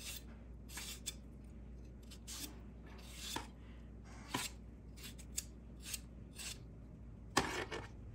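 Kitchen knife slicing thin strips off a peeled, firm mango held in the hand: a series of short, crisp cuts at irregular intervals, the loudest near the end.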